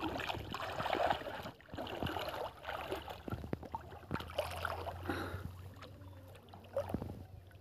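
Water splashing and sloshing as a man wades through shallow muddy water working a sip jal, a bamboo-poled lift net, raising it out and dipping it back in. Irregular splashes, busiest in the first couple of seconds and thinning toward the end.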